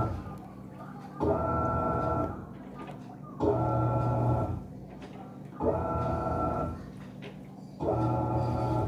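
Panasonic 14 kg washing machine agitating in its wash cycle: the motor drives the wash action in pulses of about a second, one roughly every two seconds, each a humming whine over churning, four times in a row with a low steady hum in between.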